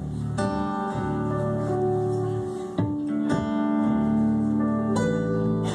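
A live acoustic band playing an instrumental passage between vocal lines: strummed acoustic guitars over upright bass, the chords changing every second or two.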